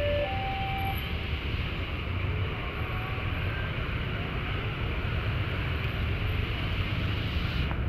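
Freight train of fuel tank wagons rolling past with a steady rumble, mixed with motorcycle engines at the level crossing. A two-note alternating tone sounds and stops about a second in.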